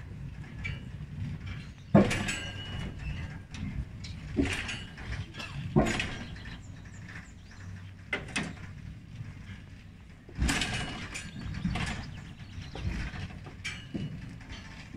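Steel rail carriage of the Elbląg Canal's hydro-powered slipway, carrying a boat, rumbling along its rails as the cable hauls it out of the water. Irregular metallic clanks and knocks come every second or two over the rumble, the loudest about two seconds in.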